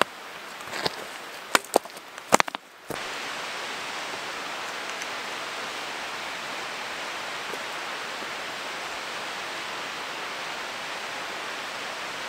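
Trekking poles tapping on rock and boots on a stony trail, a few sharp clicks over about three seconds. Then an abrupt switch to a steady, even rushing noise.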